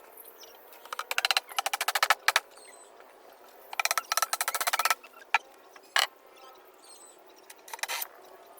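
Rapid, even clicking in three short bursts, each under a second or so, then a few single sharp clicks near the end, during work on a wooden case.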